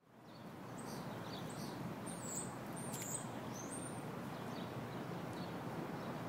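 Small birds chirping over a steady outdoor background rumble. The sound fades in at the start, and the loudest chirps come about two to three seconds in.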